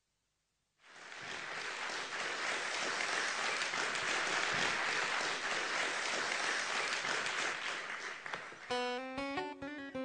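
Audience applause starting about a second in, giving way near the end to strummed acoustic guitar music.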